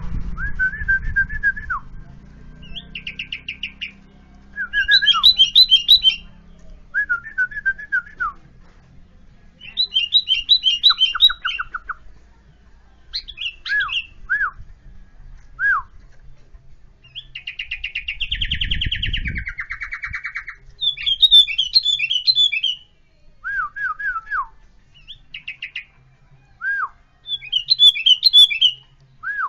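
Yellow-vented bulbul (trucukan) singing: short bubbly chattering phrases alternating with clear downward-slurred whistles, coming in bouts a second or two apart, with one longer, denser phrase about two-thirds of the way through.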